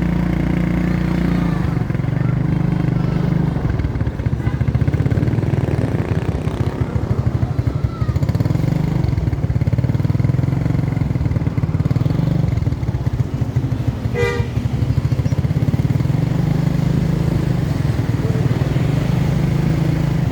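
Motorcycle engine running steadily while being ridden, with one short sharp sound about fourteen seconds in.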